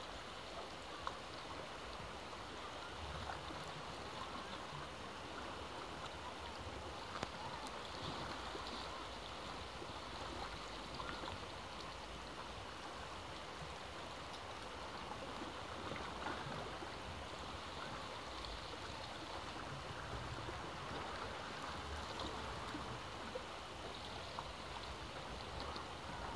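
Ocean waves washing on the shore: a steady rush of water that swells and eases every few seconds, with a few faint ticks.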